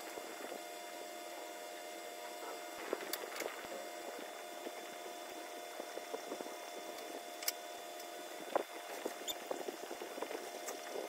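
Pencil scratching on paper in quick, short shading strokes, with a few sharper ticks of the tip against the paper.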